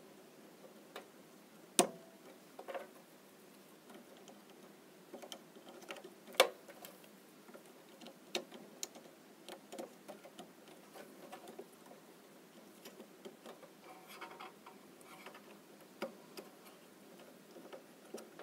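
Ribbon cable connectors being pressed into the sockets of an LED display's hub card: two sharp clicks, about two seconds in and again about six and a half seconds in, among scattered lighter ticks and taps as the flat cables are handled.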